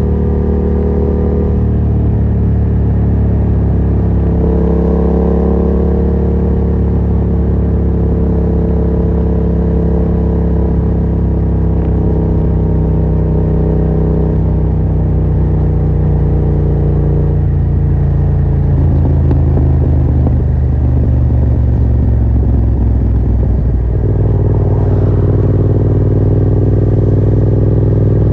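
Yamaha MT-07's parallel-twin engine running through a Yoshimura R77 exhaust with no dB killer, heard while riding. The engine note holds fairly steady, sinks slowly for several seconds past the middle, then jumps up suddenly near the end.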